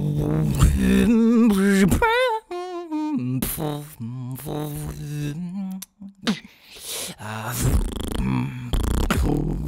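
Vocal beatboxing: mouth-made kick and snare hits over low pitched bass notes, with a wavering, quavering vocal line about two seconds in. The beat stops briefly about six seconds in, then starts again.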